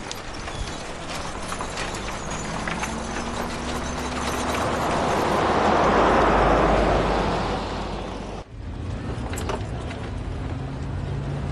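An old-style car drives past close by, its engine and tyre noise swelling to a peak about six seconds in. After a sudden cut at about eight and a half seconds, a steady low engine drone is heard as from inside the car's cabin.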